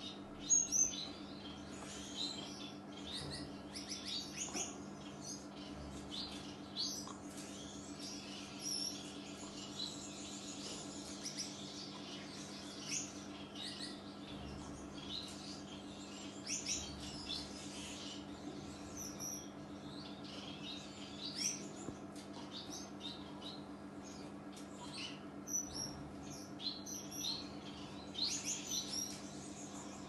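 Small aviary finches chirping: many short, high peeps and twitters, over a faint steady low hum.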